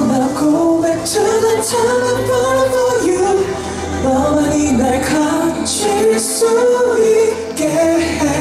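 A male pop singer's voice singing a K-pop song over its backing track, the melody gliding and held through long phrases.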